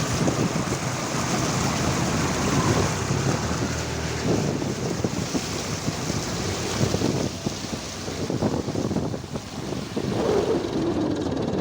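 Wind noise buffeting the microphone from a moving vehicle, over a steady low engine rumble.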